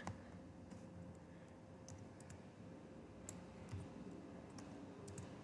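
Several faint, scattered clicks of a computer keyboard and mouse while text is being edited, a few keystrokes and clicks spaced irregularly.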